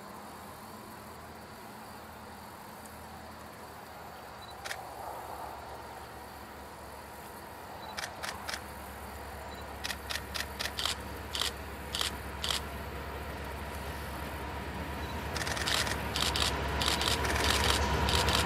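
Diesel locomotives of an approaching freight train, a low engine rumble that grows steadily louder from about halfway through, with scattered sharp clicks and knocks on top.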